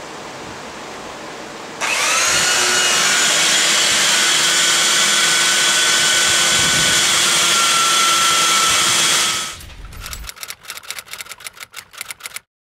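Compact belt sander fitted with a 180-grit belt, hooked to a dust-extraction vacuum, starts up about two seconds in and runs steadily while lightly sanding the flat end-grain face of a wooden mallet head, then stops. Rapid, irregular ticking fades out after it stops. A steady lower hiss comes before it starts.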